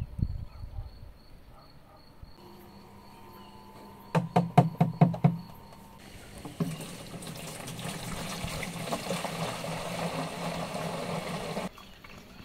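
Water poured from a large plastic bottle into a plastic watering can: a quick run of loud knocks about four seconds in, then a steady splashing pour that cuts off abruptly near the end.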